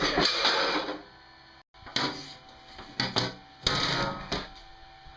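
Clattering and sharp knocks of small hand-worked mechanical parts: a noisy rattling stretch about a second long, then, after an abrupt cut, several separate knocks and another rattling stretch.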